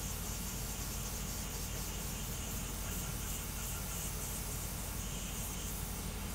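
3D printer running a fast print: a steady hiss of its fans with a low hum underneath, unchanging throughout.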